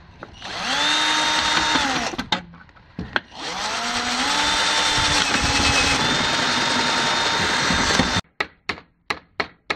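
Cordless drill boring through galvanized sheet metal in two runs, a short one and then a longer one of about five seconds, its motor whine dropping as each run ends. Near the end come quick sharp taps, about four a second.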